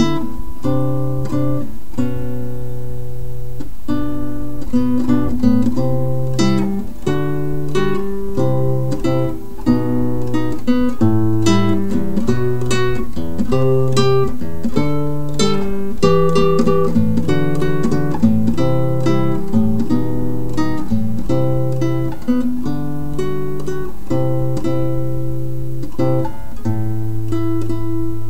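Acoustic guitar music: a run of quick plucked notes over held low bass notes.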